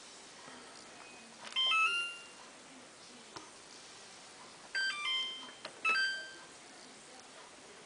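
Samsung WF8804RPA washing machine's control panel sounding three short electronic chimes of a few quick notes each, with faint clicks of buttons being pressed as the programme is set. The first chime is about one and a half seconds in; the other two come close together past the middle.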